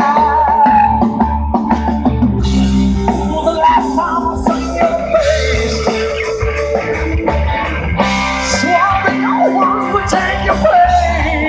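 Rock music led by electric guitar, playing continuously.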